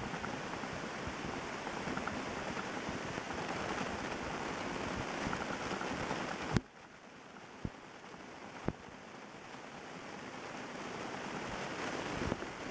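Heavy rain pouring down during a thunderstorm, a dense steady hiss. About halfway through there is a click and the rain sound drops abruptly quieter. A couple of single taps follow, and the rain swells louder again toward the end.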